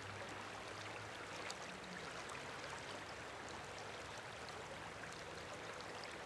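Faint, steady rush of a river flowing.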